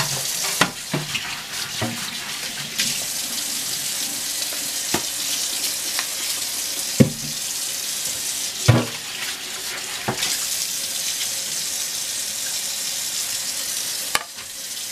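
Kitchen tap running steadily into the sink, with a few scattered knocks and clunks of things being handled.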